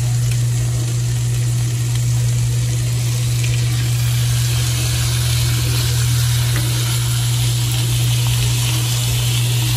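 Thin slices of seasoned beef sizzling as they are laid into a hot nonstick frying pan of melted butter, the hiss growing a little stronger about three and a half seconds in. A steady low hum runs underneath.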